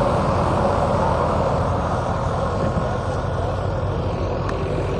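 Wheat thresher driven by a tractor's diesel engine, running steadily, growing slightly fainter about halfway through.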